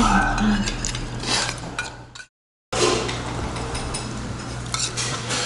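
Spoons clinking against soup bowls during eating, over a steady room hum. The sound drops out to total silence for about half a second near the middle, then the clinks and hum resume.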